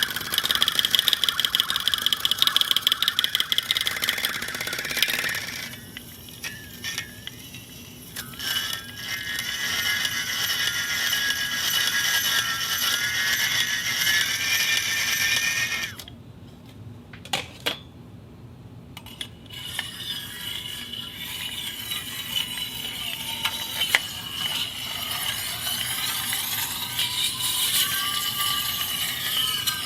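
Objects of different materials scraped and dragged across a concrete floor: rough scraping with fast chattering at first, then high squealing friction tones that wander in pitch. Just past halfway the scraping stops for a few seconds, leaving a few clicks, then resumes.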